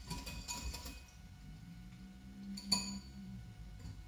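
Small wire whisk stirring in a ceramic bowl, light rapid clinking for about the first second. Then a single sharp, ringing clink of metal against a ceramic bowl about two and a half seconds in.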